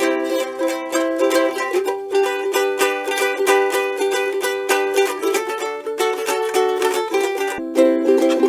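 Cigar box ukulele strummed in chords, steady repeated strokes; the playing breaks off abruptly near the end and starts again on a new chord.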